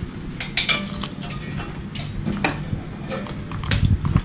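Plastic plug connectors and clips of a Honda K24 engine wiring harness clicking and clattering against each other and the engine as the loose harness is handled, in irregular sharp clicks.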